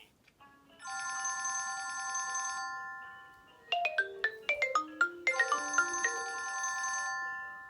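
iPhone 6 ringing with an incoming call, playing its old ringtone: a held chord that fades out, then about a second later quick marimba-like notes over another held chord.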